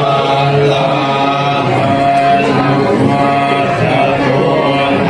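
Buddhist monks chanting in Pali in unison, a continuous group chant held on a low, nearly level pitch.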